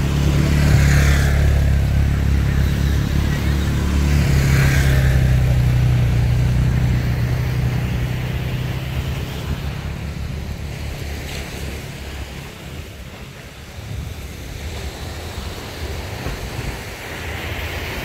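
A motor vehicle's engine running close by: a low steady hum that fades away about halfway through. Surf washes on the shore, with wind on the microphone.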